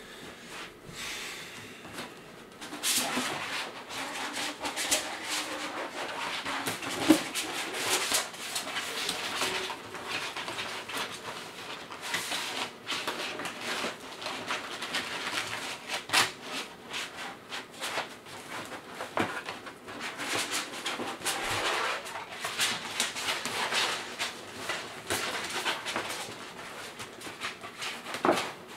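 Rustling and crinkling of a light tent's silver reflective fabric and white backdrop as they are handled and smoothed into the frame, with many small crackles and knocks, getting louder about three seconds in.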